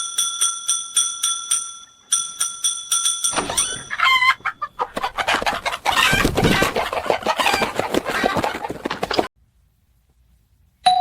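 A bell ringing rapidly in two bursts of about five strokes a second, then a flock of hens clucking loudly in a commotion for about six seconds, cutting off suddenly.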